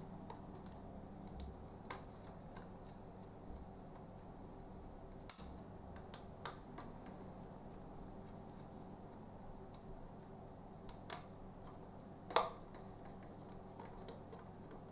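Small screwdriver backing out the four screws around a laptop's processor: scattered light clicks and ticks of the bit in the screw heads, with a few sharper clicks about five, eleven and twelve seconds in.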